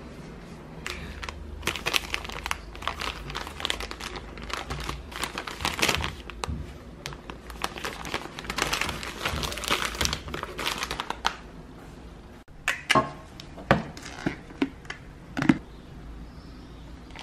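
Snack packaging crinkling and rustling in irregular bursts for about ten seconds as it is handled. After a brief break come a few sharp knocks.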